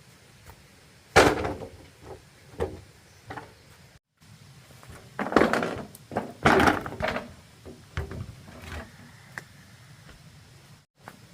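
A series of hard wooden knocks and thuds at uneven intervals, the loudest in the middle, typical of bamboo poles being handled or struck during building.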